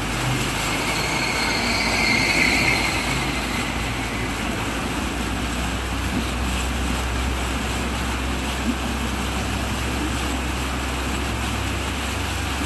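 A van driving through floodwater: its engine gives a low steady hum while the wheels churn and spray water continuously.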